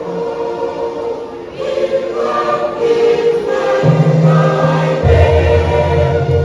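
Junior choir singing a gospel song in sustained, held chords. Low bass notes come in about four seconds in and drop deeper about a second later.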